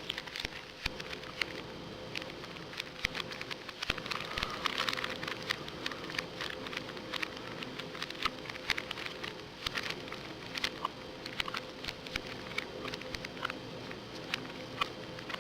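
Two plastic Rubik's cubes being twisted: a busy, irregular stream of clicks and clacks as the layers turn, over a steady low hum.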